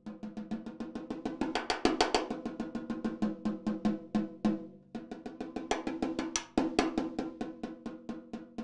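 Snare drum played with drumsticks in a fast, even run of strokes, about six or seven a second, some accented, while the kit's drum heads ring underneath. The run breaks off briefly about halfway through and then resumes.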